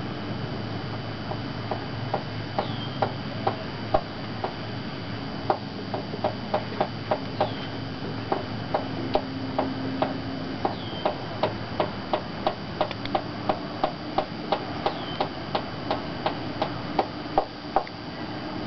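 A long run of sharp ticks over a steady low hiss, irregular at first and then about two to three a second, stopping near the end. Four faint high whistles fall in pitch along the way.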